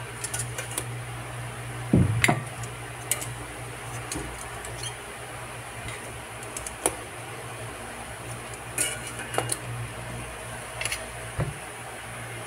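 Metal utensil clinking and knocking against a metal cooking pot as boiled potatoes are lifted out one at a time: scattered clinks, loudest about two seconds in, over a steady low hum.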